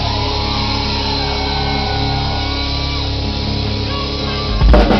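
Live rock band: electric guitars hold steady, ringing chords with no drums, then the drum kit and guitars crash back in near the end.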